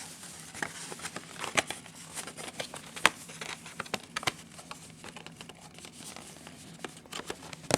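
Cardboard gatefold CD package being opened and handled: rustling and crinkling with scattered light taps and clicks, the sharpest click about three seconds in.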